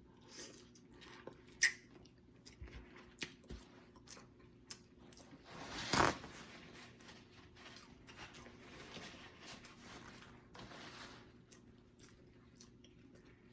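Close-up eating sounds: chewing and biting at boiled neck bones, with small wet clicks and one louder hiss-like sound lasting about half a second around the middle.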